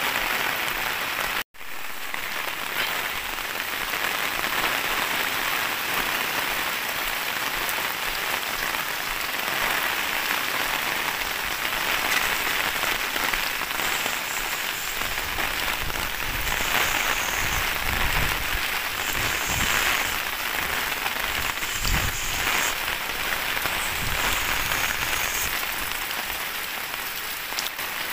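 Heavy rain falling on a street, a dense steady hiss. The sound drops out for an instant about a second and a half in, and low thuds come and go in the second half.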